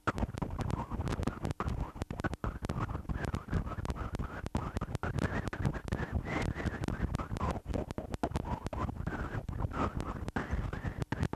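Rough, crackling wind and road noise on the microphone of a moving vehicle, broken by many brief dropouts.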